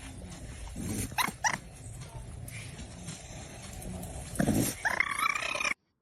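A dog whimpering and yipping, with two short yips just over a second in and a longer whine near the end.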